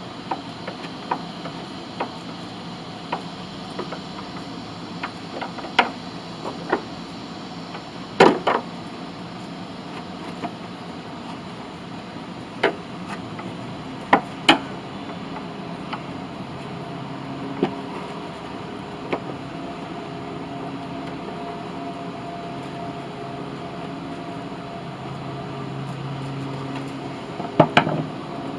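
Scattered sharp clicks and knocks of hands working a stiff shift cable and its fittings on a Honda HRX217 lawn mower, over a steady low hum. The loudest knock comes about a third of the way in, with two close together about halfway and a quick double near the end.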